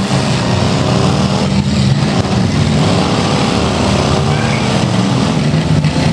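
Several demolition derby cars' engines running and revving together, loud and steady, their pitch rising and falling as the cars push around the arena.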